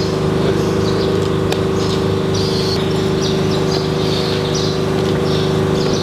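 Steady mechanical hum made of several fixed tones, unchanging throughout, with short high bird chirps repeating over it.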